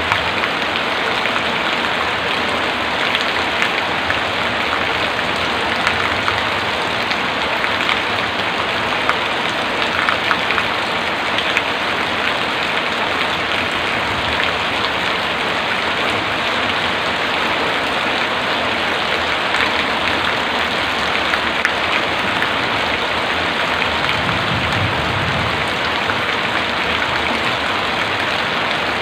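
Heavy rain falling steadily, with the patter of drops hitting surfaces. A brief low rumble comes about 24 seconds in.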